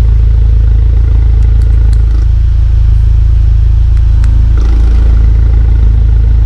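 Chevrolet Malibu with a full variable-valve cat-back exhaust idling with its exhaust valve open: a loud, steady, deep exhaust drone.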